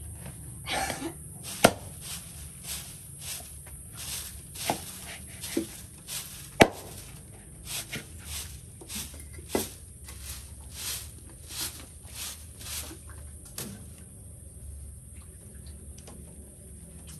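A machete chopping and paring the husk off a coconut: a run of strokes, one or two a second, with two sharp knocks louder than the rest. The strokes stop about three-quarters of the way through.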